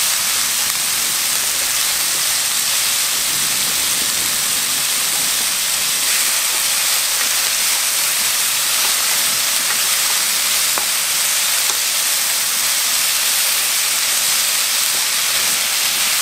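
Sweet potato stems and onion sizzling steadily in hot oil as they are stir-fried in a pan, with a few faint taps of wooden utensils.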